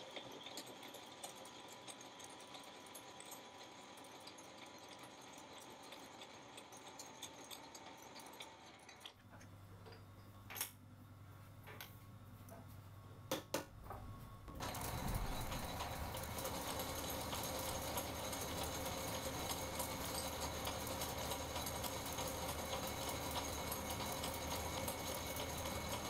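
Small metal lathe running with a steady mechanical whir while a high-speed steel cutter faces steel washers. Part way through, the sound drops to a quiet stretch with a few sharp clicks. Then the lathe runs again, louder.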